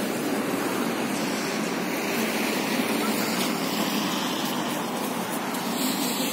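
Steady city street traffic noise: cars passing on a wide avenue, an even wash of engine and tyre sound.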